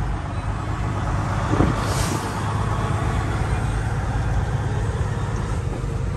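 Semi-truck's diesel engine running steadily, heard from inside the cab while driving, with a short hiss about two seconds in.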